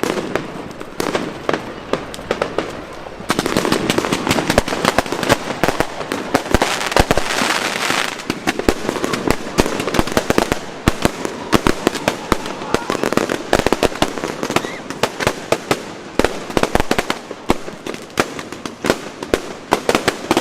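Fireworks going off in rapid succession, a dense run of bangs and crackles that grows thicker and louder about three seconds in.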